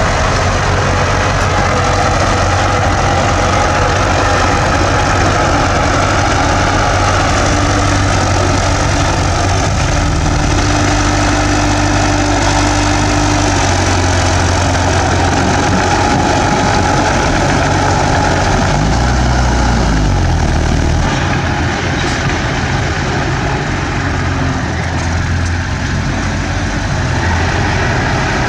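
Bulldozer's diesel engine running steadily. Its note shifts about two-thirds of the way through and it runs a little quieter afterwards.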